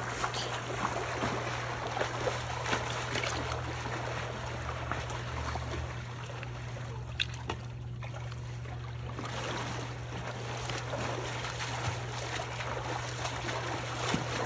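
Pool water splashing and sloshing as a person swims freestyle across a backyard pool, the splashing thinning for a couple of seconds around the middle, over a steady low hum.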